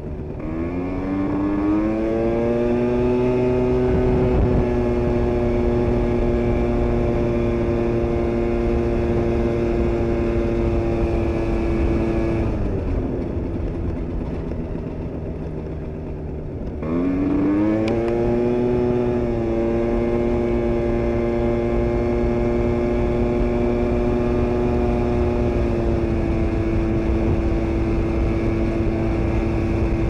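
Aprilia SR scooter's two-stroke engine with a 172 cc Malossi kit, under way: the revs climb over the first couple of seconds and hold at a steady pitch, fall away as the throttle is closed about twelve seconds in, then climb and hold again about five seconds later. It runs on an old worn Malossi belt that the owner says slips.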